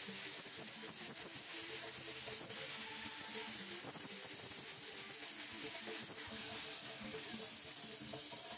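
Gas welding torch flame hissing steadily while aluminium is being torch-welded with a hand-fed filler rod.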